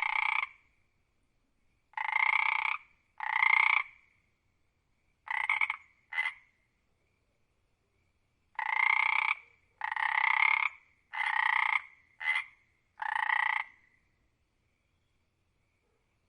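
A frog croaking: about ten separate calls, each under a second long, some of them very short, coming in uneven groups. They stop about two seconds before the end.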